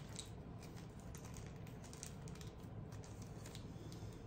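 Faint, scattered light clicks and rustles of small trinkets and their packaging being handled.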